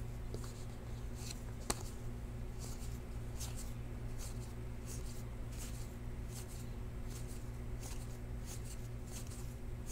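Panini Classics football trading cards sliding against one another as a stack is flipped through by hand, a soft swish each time a card moves, with one sharp tick a little under two seconds in. A steady low hum runs underneath.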